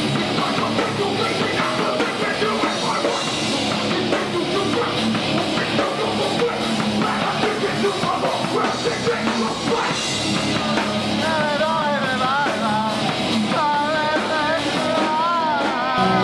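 A heavy rock band playing live and loud: distorted guitars, bass and a drum kit. In the second half a high melody line comes in over the band, wavering and bending up and down in pitch.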